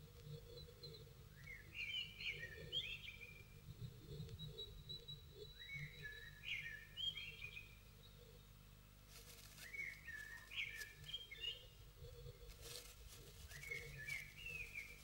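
A songbird singing four short phrases of quick chirping notes a few seconds apart, over a low hum. Brief scratchy clicks come in the second half.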